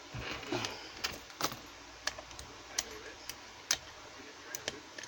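Small metallic clicks and clinks, about eight of them spaced irregularly, from a Euro-profile cylinder lock and its keys being handled.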